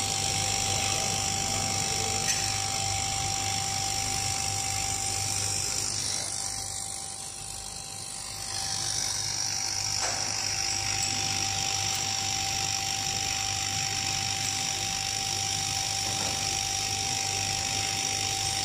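Automatic CNC template sewing machine stitching a zipper onto a jacket panel: a steady mechanical whir with a constant high-pitched whine and a low hum. It goes briefly quieter for about two seconds a third of the way in.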